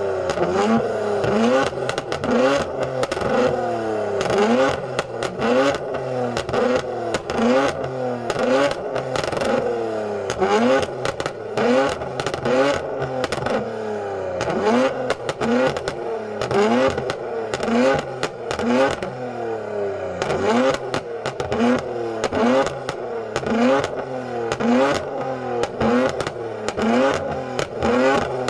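Infiniti Q50 with catless downpipes, custom exhaust and tune, revved over and over in short blips while stationary, each rev rising and falling, with loud sharp pops and crackles from the exhaust throughout: the tune-induced exhaust pops that spit flames.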